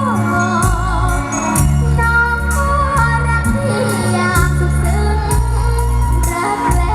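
A Thai song played loud, with a woman singing over heavy bass, drums and regular cymbal hits.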